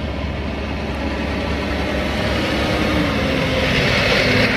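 Semi-truck engine and road noise heard inside the cab while driving: a steady rumble with a hiss that grows louder toward the end.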